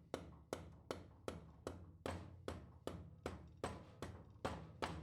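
A steady run of light, evenly spaced taps or clicks, about two and a half a second.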